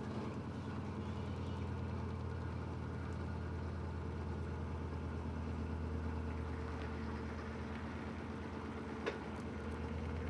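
Electrolux LED14 washing machine spinning, a steady motor hum with a short click about nine seconds in.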